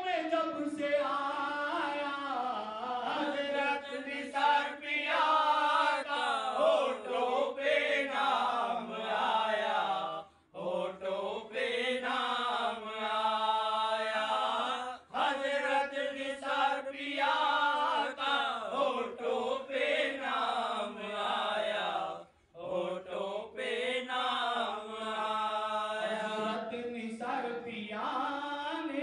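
A man chanting a devotional song with long, wavering held notes, breaking off briefly about ten and twenty-two seconds in.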